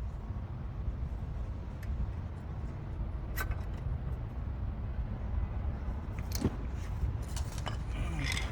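Steady low rumble with scattered sharp clicks and clinks of metal parts and tools being handled, a few in the first half and more near the end, during brake pad work on a car.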